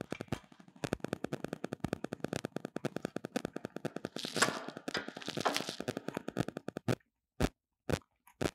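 Hand-tightening the roll-die bolt on a steel tube roller frame with a hex key and pliers: fast, even metallic clicking, a scraping hiss from about four to six seconds in, and short stretches of near silence near the end.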